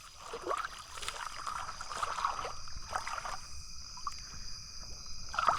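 Shallow floodwater sloshing and splashing in irregular bursts, over a steady high-pitched insect drone.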